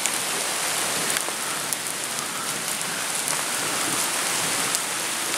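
Steady rain falling on trees and grass, with scattered sharp ticks of single drops hitting close by.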